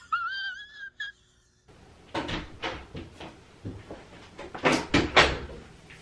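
A brief high, wavering pitched squeal in the first second, then after a short silence a run of uneven knocks and rustling bumps, like someone moving about close to the microphone. The loudest two bumps come close together a little before the end.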